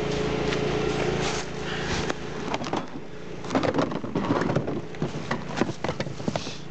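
The plastic hood of a Honda riding mower being pushed down and shut by hand, giving a run of knocks, rattles and clacks in the second half. A steady low hum sits underneath.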